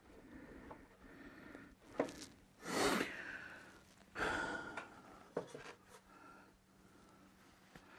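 Sounds of hands working on an oil burner unit: a sharp click about two seconds in, then two long, loud sighing exhalations about a second and a half apart, and a few light knocks.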